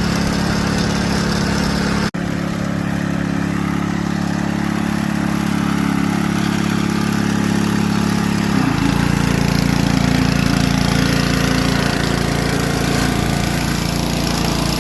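Engine-driven pressure washer running steadily, its engine note under a constant hiss. The sound drops out for an instant about two seconds in, and the engine's pitch shifts partway through.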